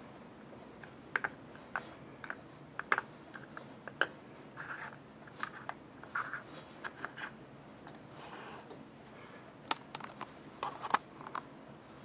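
Plastic wargaming miniatures and barricade pieces being picked up and set down on a cutting mat: scattered light clicks and taps with a few short scrapes.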